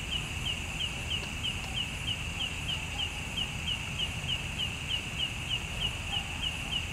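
A high chirp repeating evenly, about three a second, each chirp sliding slightly down in pitch, over a steady low rumble.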